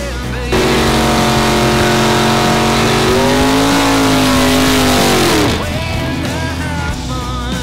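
V8 drag car, a first-generation Chevrolet Camaro, doing a burnout: the engine cuts in suddenly and is held at high revs with the rear tyres spinning, the pitch swelling slightly before dropping off as the throttle closes about five seconds in. Rock music carries on around it.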